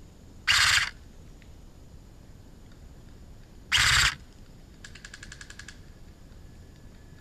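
Two short full-auto bursts from a JG M4 airsoft electric gun, each under half a second, the second about three seconds after the first. About five seconds in comes a fainter, fast rattle of about fifteen ticks a second.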